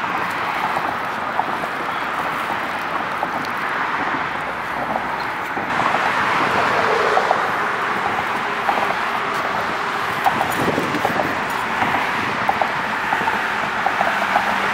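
Steady traffic noise from cars passing on a road bridge, stepping up louder about six seconds in.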